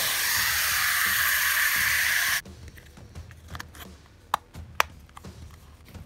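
Water poured into a small plastic water cup, a steady hiss that stops abruptly about two and a half seconds in, as the cockroaches' water dish is refilled. Then light clicks and knocks of the plastic cup being handled and set down, with two sharp clicks near the end.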